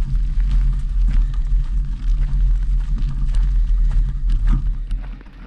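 Heavy wind buffeting on the microphone of a camera carried on horseback, a low fluttering rumble, with scattered knocks from hoofbeats on the trail. The rumble eases near the end.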